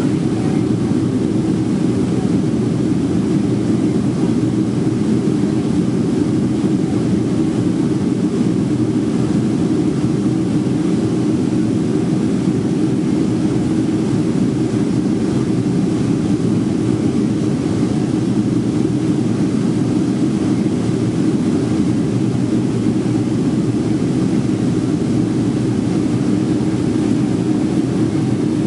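Steady cabin noise inside a Boeing 757-200 airliner in flight: the jet engines' drone and rushing airflow, heaviest in the low range.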